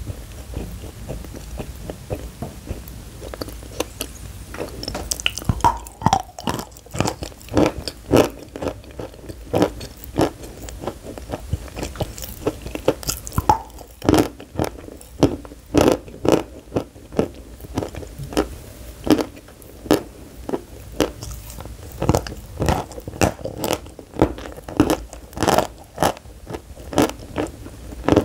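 Close-miked biting and chewing of dry pressed cream (powdered cream blocks): crisp, crumbly crunches at a steady pace of about two a second. The crunches start sparse and grow denser and louder after about five seconds.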